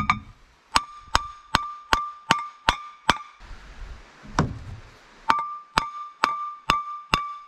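Hammer blows on a rusted-on Toyota 4Runner front brake rotor, knocking it loose from the hub. The blows come about two to three a second in two runs, and each one makes the cast iron rotor ring with a clear, bell-like tone. About halfway through there is a duller thump as the rotor is turned between runs.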